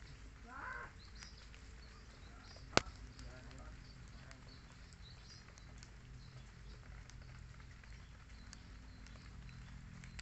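Quiet streamside ambience with faint, scattered high bird chirps over a low steady hum. A short wavering call sounds under a second in, and one sharp click, the loudest sound, nearly three seconds in.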